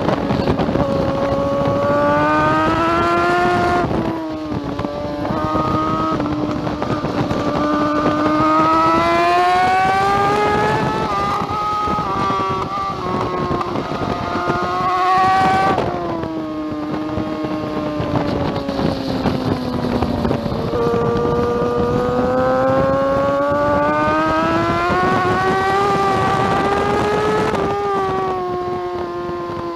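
2009 BMW S1000RR's inline-four engine at racing revs, its pitch climbing steadily under acceleration and falling back sharply several times with gear changes and braking.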